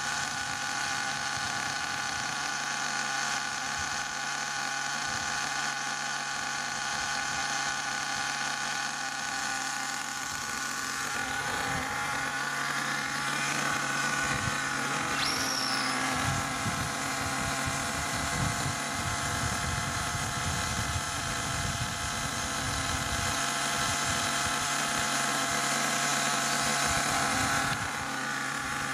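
Nitro engine of an HPI Savage XL 5.9 running steadily at idle on a stand during break-in, burning the tank down.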